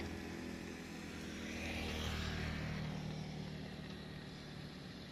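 Long-reach excavator's diesel engine running, swelling a little about two seconds in, then easing off.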